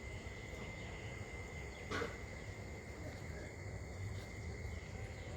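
A steady, high, even insect trill, faint under low background rumble, with a single sharp click about two seconds in.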